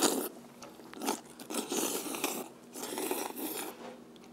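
Mouthfuls of hand-pulled jajangmyeon noodles being slurped up, several noisy slurps in a row, the longest ones a little after a second and a half in and again about three seconds in.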